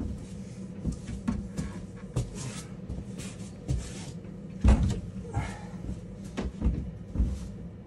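Hands and feet knocking and thudding against plastic climbing holds and the plywood panels of a steep home training board as a climber makes hard moves. The loudest thud comes about halfway through, with short, hard breaths in between.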